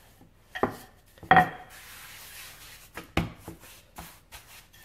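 Wooden rolling pin rolling out a ball of croissant dough on a worktop: rubbing with several sharp knocks as the pin is pushed and set down, the loudest just over a second in.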